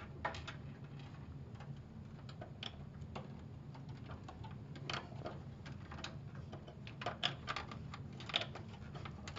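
Scattered light clicks and taps of a plastic cable connector being handled and pushed into a DVD drive's socket inside a PC case, over a low steady hum.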